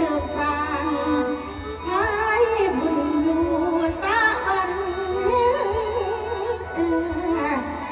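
A woman singing Isan lam rueang (folk opera) into a microphone, a long melismatic line of held, ornamented notes, over steady instrumental backing.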